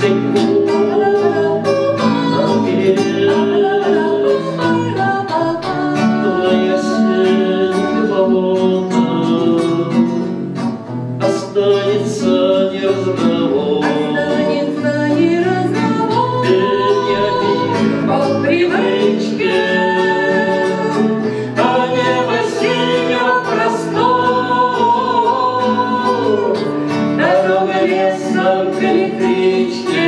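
A man and a woman singing a Russian song in duet to an acoustic guitar.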